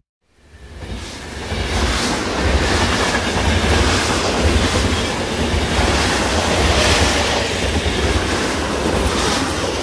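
Diesel-hauled freight train passing, with a heavy low rumble and the noise of wagons rolling on the rails. It swells in over the first two seconds and begins to fade near the end.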